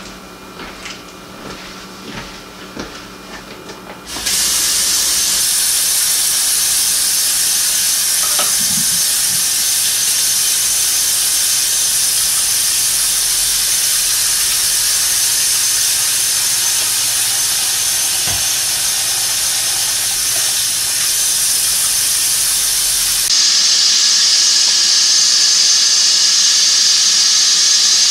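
A few light clicks and knocks, then a kitchen faucet turned on, water running steadily into a sink as a loud hiss. Near the end the hiss becomes brighter, with the stream falling into a sink full of soapy water.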